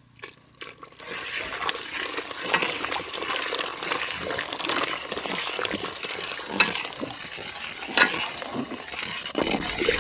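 Thick palm jaggery syrup pouring from a large metal pot into cooked moong dal, starting about a second in, while a long metal ladle stirs and sloshes the mixture. A few sharp knocks come through.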